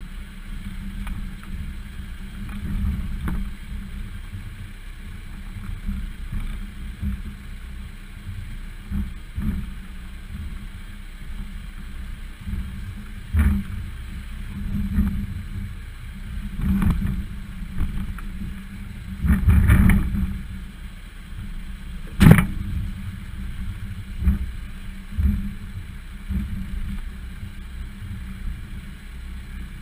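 A Volvo XC60 driving over a rocky trail, heard from a camera mounted on its bumper: a low, steady rumble broken by irregular knocks and jolts as the tyres and body go over rocks. One sharp knock about two-thirds of the way through is the loudest.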